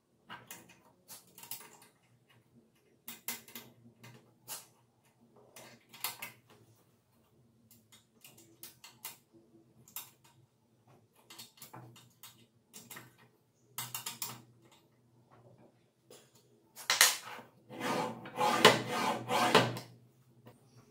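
Scattered metal clicks and clinks as bolts and nuts on a steel angle grinder stand are tightened by hand, with a louder clatter of metal parts being handled for about three seconds near the end.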